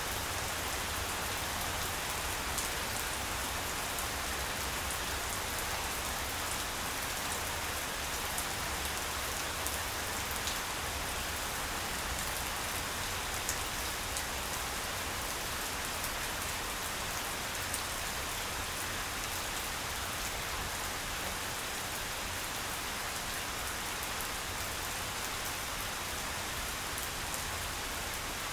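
Steady rain falling on grass, an even hiss with a few louder single drop ticks scattered through it.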